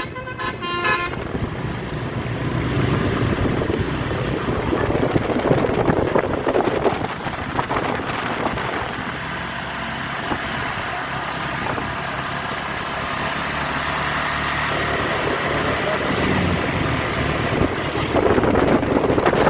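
A bus's basuri telolet musical air horn finishes its tune about a second in, followed by steady vehicle engine and road noise.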